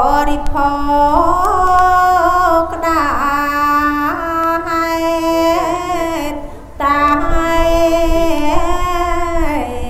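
A solo voice singing Khmer smot, a Buddhist chanted poem, in long held notes with wavering ornaments. It pauses briefly for a breath about two-thirds through.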